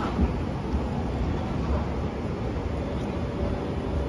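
Toyama Chiho Railway De8000-series tram running away along the street track, a steady low rumble.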